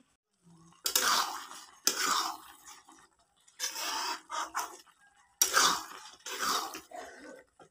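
Flat metal spatula stirring and scraping thick, wet loitta (Bombay duck) fish curry in a metal kadai: about five scraping strokes, each under a second, with short pauses between them.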